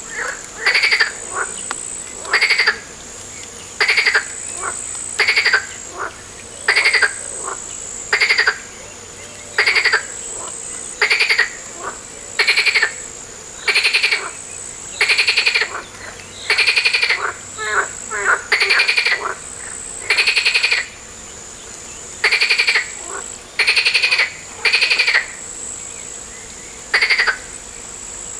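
A frog calling over and over: short, rasping, pulsed croaks, one roughly every one and a half seconds, sometimes two close together. A steady high-pitched drone runs behind them.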